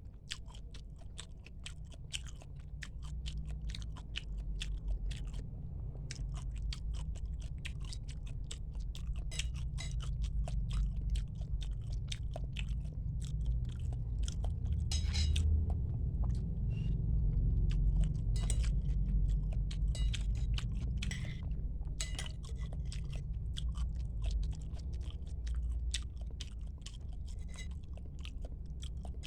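Close-miked chewing and biting: wet, clicky mouth sounds of someone eating bakso meatballs and noodles, with a steady low rumble underneath.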